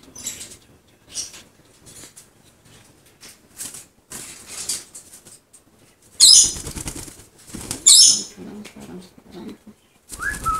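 Blue-fronted amazon parrot beating its wings while perched on a hand, in two loud bursts of flapping about six and eight seconds in, after some light clicking and rustling. A short rising squawk comes right at the end.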